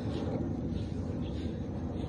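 Steady low rumble of wind buffeting the phone's microphone outdoors.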